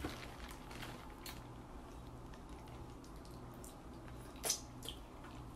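Faint wet handling of sauce-covered seafood boil inside a plastic bag, with soft scattered clicks, then a short lip smack about four and a half seconds in, and another just after, as sauce is sucked off the fingers.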